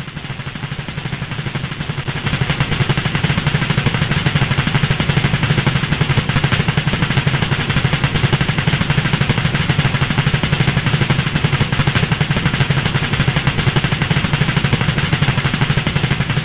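Two-stroke engine running at speed: a rapid, rattling buzz of firing strokes that builds over the first few seconds and then holds steady.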